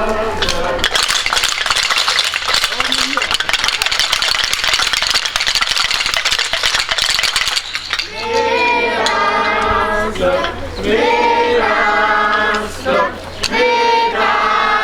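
Hand-held wooden clappers used in place of church bells, rattled together in a fast, steady clatter for several seconds. About halfway through the clattering stops and a group chants a verse in unison, in short lines with brief pauses between them.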